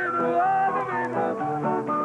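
Live band music: acoustic guitar with a held, wavering melody line over it.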